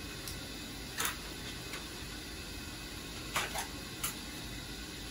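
Zero-perm adhesive tape being pulled and pressed onto a foil-covered insulation jacket: a few short ripping sounds, one about a second in and a cluster around three and a half to four seconds, over a steady machinery hum.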